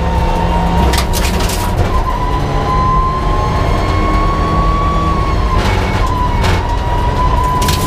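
Mitsubishi Lancer Evolution IX rally car's turbocharged 2.0-litre four-cylinder engine running hard at speed, heard from inside the cabin, with a high whine that slowly rises and dips twice with the changes in speed. A few short sharp cracks cut in over it.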